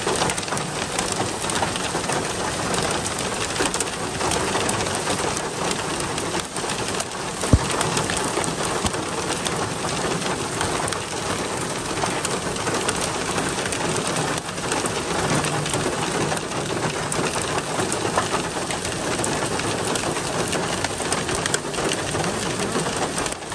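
Heavy rain mixed with hail pelting the ground: a dense, steady hiss with many small ticks. One sharp knock stands out about seven and a half seconds in.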